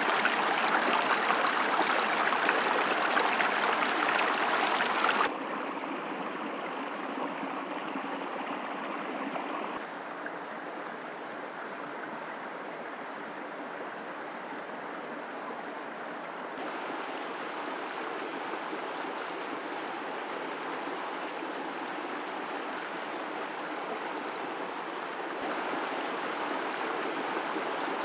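Shallow stream running over rocks: a steady rush of water. It is loudest at first, drops suddenly about five seconds in, and shifts level a few more times.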